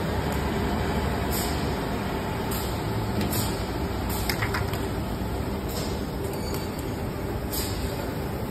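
JT-SLT paper slitter rewinder running: a steady mechanical drone, with short hisses now and then.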